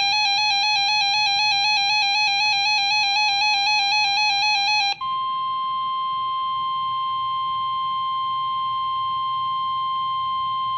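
Electronic emergency alert tones: for about five seconds a loud warble rapidly alternating between two pitches, then a single steady tone near 1 kHz, the NOAA Weather Radio 1050 Hz warning alarm that precedes a warning message.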